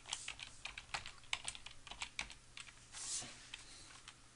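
Computer keyboard being typed on, quick irregular keystrokes as a name is entered into a form.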